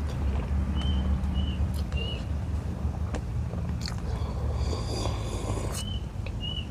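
Eating sounds: chewing and a few mouth clicks, then a slurp of tuna-head tinola broth sipped from a coconut-shell bowl about two-thirds of the way through. Under it runs a steady low rumble, and a short high chirp repeats about every half second.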